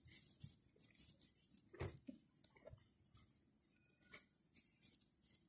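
Near silence with faint rustling and small soft knocks as a baby doll's cloth sleepsuit is handled and pulled on; one slightly louder knock about two seconds in.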